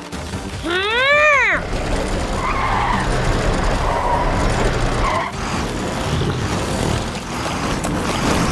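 Cartoon vehicle engines straining and wheels spinning and skidding as the vehicles pull a stuck truck out of mud. About a second in there is a short rising-and-falling whine, followed by steady skidding noise.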